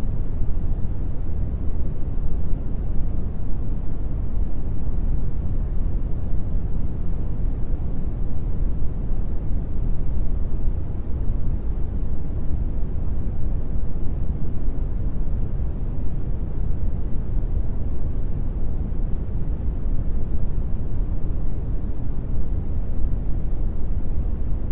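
Steady brown noise: an even, deep rumbling hiss with most of its weight in the low end, unchanging throughout.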